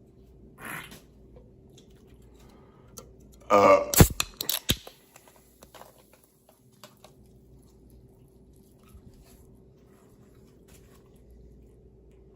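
A person burping once, a short loud burp about three and a half seconds in, followed right after by a few sharp clicks.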